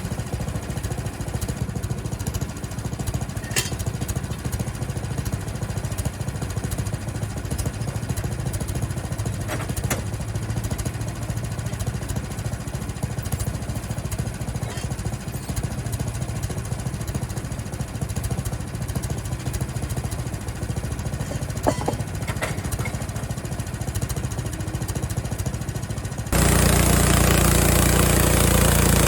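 Small gasoline engine of a Frontier OS23 portable bandsaw sawmill running steadily with a low pulsing beat. About 26 seconds in it suddenly gets louder, with a lot more hiss.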